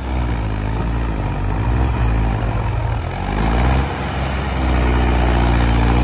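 Mahindra 575 DI tractor's diesel engine revving hard under load as it hauls a loaded trolley through soft sand. The revs dip and climb a couple of times, then hold high near the end.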